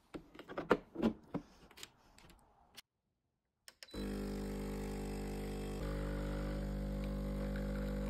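Metal clicks and knocks as the portafilter is twisted and locked into the group head of a Casabrews CM5418 espresso machine. About four seconds in, the machine's pump starts with a loud, steady hum, pushing water through the coffee for an espresso shot; it gets slightly louder near six seconds.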